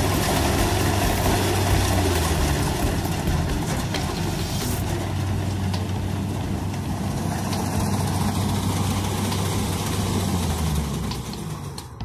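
Kubota DC70 rice combine harvester's diesel engine and threshing machinery running steadily as it harvests, a loud continuous drone with a low hum. The sound falls away near the end.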